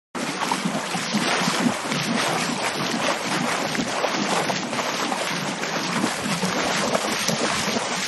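Steady rushing water noise, an ocean or underwater ambience sound effect, cutting in abruptly at the start and holding steady.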